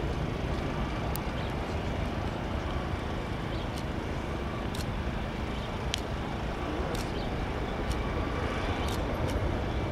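Airbus A320 jet engines at taxi idle, heard at a distance as a steady low rumble with a faint whine, with a few light ticks scattered through it.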